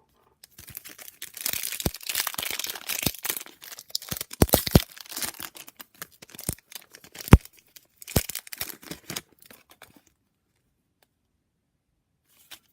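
Foil wrapper of a basketball trading-card pack being torn open and crinkled, with several sharp clicks and taps as the pack and cards are handled; the noise stops about ten seconds in.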